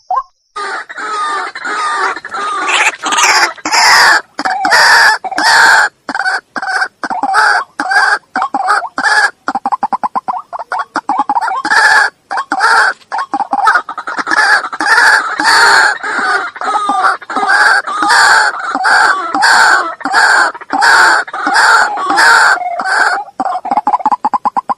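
White-breasted waterhen calling: a long, loud bout of rapidly repeated call notes, several a second, in an uneven rhythm, starting abruptly about half a second in.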